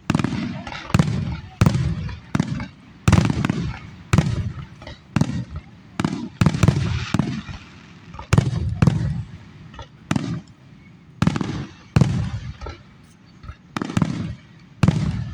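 Aerial firework shells bursting in a steady barrage, sharp bangs about once a second, each followed by a low rumbling echo.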